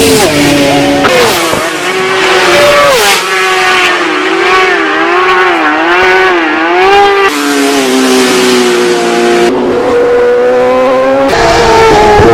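Racing motorcycle engines running at high revs, their pitch climbing, dropping and weaving with throttle and gear changes. The sound jumps abruptly every few seconds from one bike to another.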